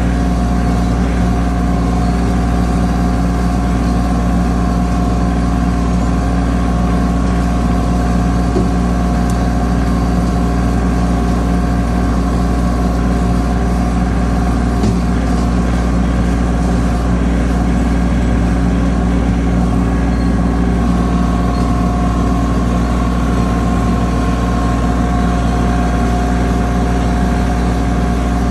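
Yanmar compact tractor's diesel engine running at a steady speed while driving, a loud, even sound with no change in pitch.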